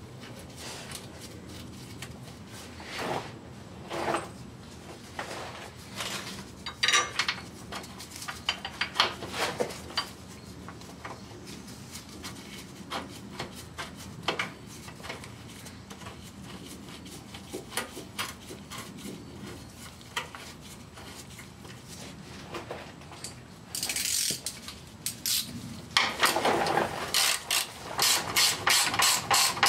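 Scattered metallic clicks and taps as the long mounting bolts are fitted through the power steering rack bracket into the subframe, then, near the end, a hand socket ratchet clicking rapidly as a bolt is run in.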